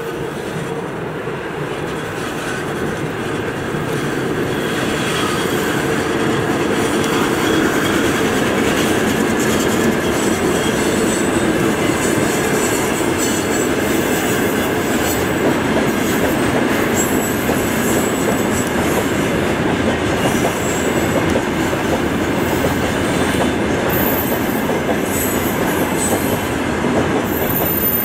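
Long freight train of open wagons and tank cars rolling past: a steady rumble of wheels on rail that grows louder over the first several seconds and then holds, with thin high wheel squeals now and then in the second half.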